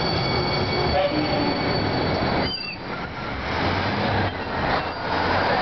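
Newark Light Rail single-car train rolling along the platform and slowing to a stop, with a rumbling run of wheels on rail. A steady high whine fades about a second in, and a brief falling squeal near the middle comes as it halts.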